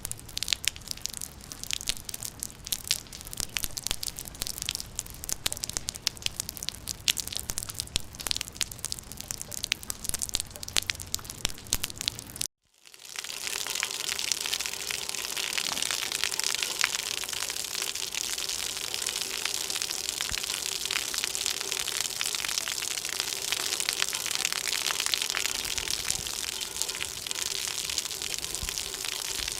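Rain in two recordings. First comes a dense crackling patter of drops hitting a surface. After a brief cut to silence about halfway through, a steady, even hiss of heavy rainfall takes over.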